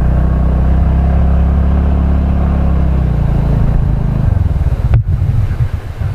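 Scooter engine running steadily as it rides up a gravel track, then easing off about three seconds in and dropping to a rough, uneven idle near the end as the scooter comes to a stop.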